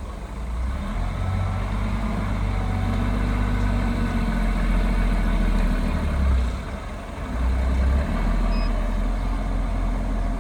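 Heavy diesel engine of earthmoving machinery running loud and low, its note stepping up and down in pitch several times.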